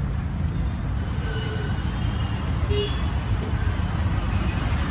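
Steady low rumble of road traffic, with a few faint, brief tones above it.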